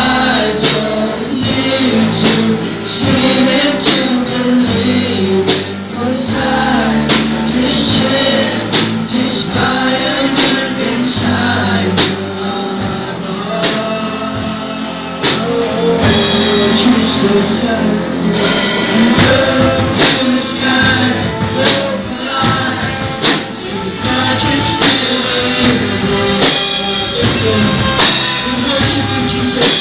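Live amateur worship band playing a contemporary worship song: male and female singers on microphones with electric guitars and a drum kit.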